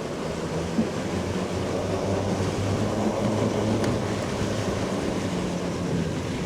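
Electric quad-motor ATV driving off, with a steady low rumble of wind over the microphone and the drivetrain and tyres, swelling slightly for a couple of seconds.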